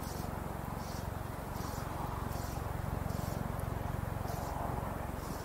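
Wind rumbling on an outdoor microphone, with short soft hisses repeating about every three quarters of a second.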